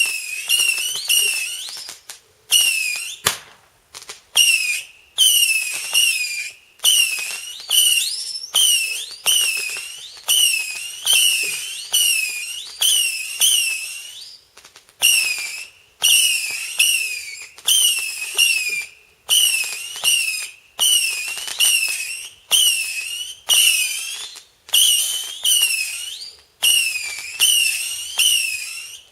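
Damp whistling firework misfiring: it sputters out a long run of short high whistles, each starting with a crack and dipping then rising in pitch. They come about two a second, with brief gaps where it stalls.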